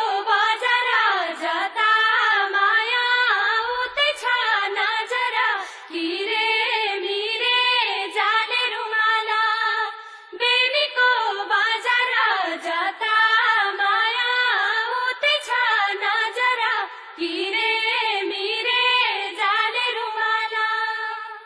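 A high-pitched voice singing a melody with no instrumental accompaniment, in long flowing phrases separated by brief pauses.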